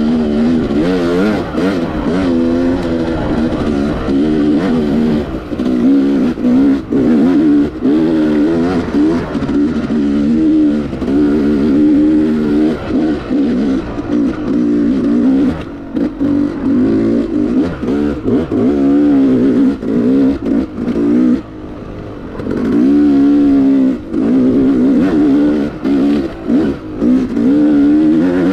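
Yamaha YZ250X two-stroke single-cylinder engine revving up and down under a riding throttle, opened and chopped again and again, with one quieter stretch of about a second roughly two-thirds of the way through.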